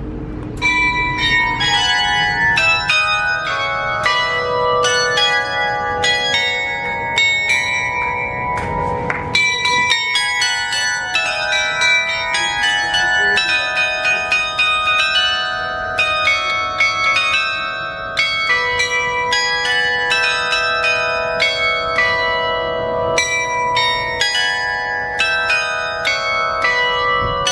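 A set of tower bells playing a melody, struck notes coming about two or three a second, each ringing on under the next.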